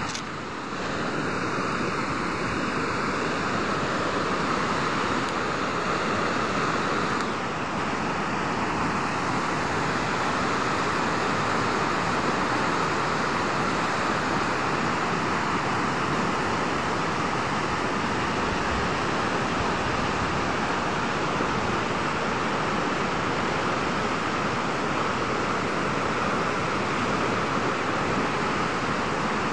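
A swollen, muddy river in flood rushing over rocks: a steady, unbroken rush of water noise.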